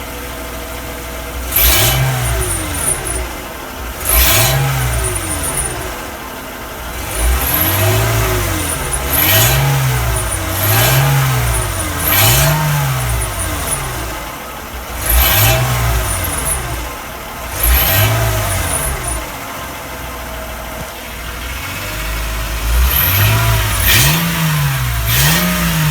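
Mercedes CLK320 W208's V6 engine idling, then revved in about ten short blips, each rising and falling back to idle. A sharp rattly noise comes at the start of several blips, which the owner suspects comes from the catalytic converter.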